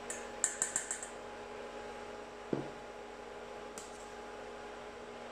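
Fine-mesh skimmer clinking against a stainless steel pot and bowl while foam is skimmed off blanching pork bones: a quick run of about five light taps in the first second, then single knocks about halfway and again later. A steady low hum runs underneath.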